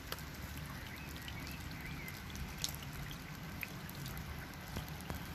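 Light rain falling, a soft steady patter with scattered single drips close by.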